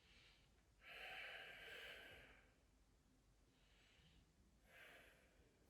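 Near silence broken by a person's long exhale about a second in, and a shorter, fainter breath near the end.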